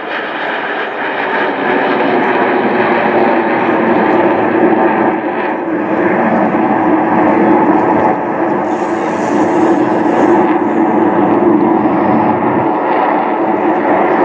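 Jet noise from a formation of Blue Angels F/A-18 Hornet jets flying overhead: a loud, steady rush that grows a little louder after about two seconds, then holds.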